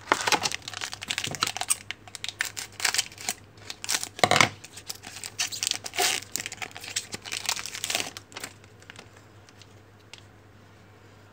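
Plastic trading card pack wrapper crinkling and being torn open, with the cards inside rustling and clicking as they are handled. The crackling stops about eight and a half seconds in.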